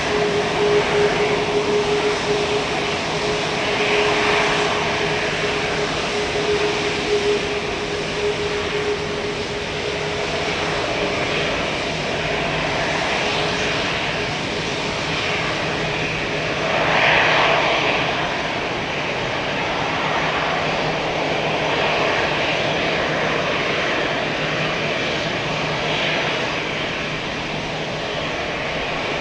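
Airbus A380-841's Rolls-Royce Trent 900 jet engines running at taxi power, a steady jet noise with a whine that fades out in the first half. A brief louder swell comes about halfway through.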